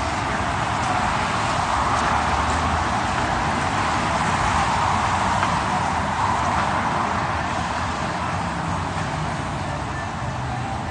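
Steady noise of road traffic on a city street, cars passing in a continuous even wash of sound.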